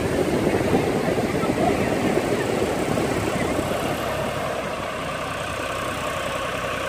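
Farm tractor's diesel engine running steadily as it tows a fishing boat up the beach, with breaking surf behind.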